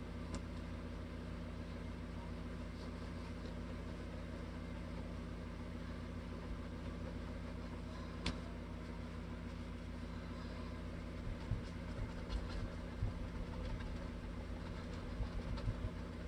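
Steady low room hum with a few faint steady tones. Over it come soft sounds of a cloth being worked over a guitar body's finish: a single sharp click about eight seconds in and a few soft knocks in the last few seconds.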